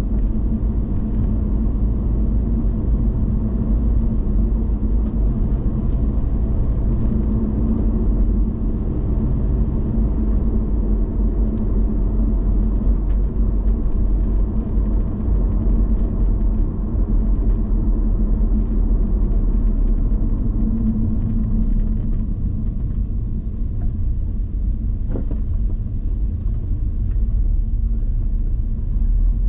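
Subaru Impreza WRX STI driving at a steady speed: a continuous low rumble of its flat-four boxer engine and tyres on the road, with a steady hum that shifts only slightly.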